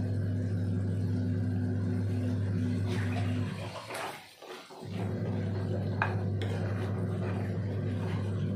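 A spatula stirring thick gravy in a metal kadai, with a few light knocks against the pan. A steady low hum runs under it, breaking off for about a second in the middle.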